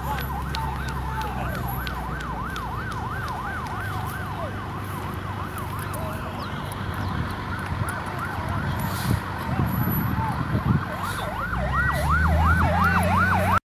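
A warbling siren, its pitch swinging up and down about three times a second. It drops away for a few seconds in the middle and comes back louder near the end. Under it runs the low drone of heavy vehicle engines, which grows louder near the end.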